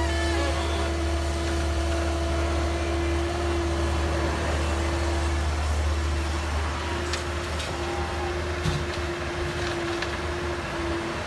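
Komatsu PC138US excavator's four-cylinder diesel engine and hydraulics running steadily under work, a low hum with a constant whine above it, as the machine digs and swings its boom. A few light knocks sound in the second half.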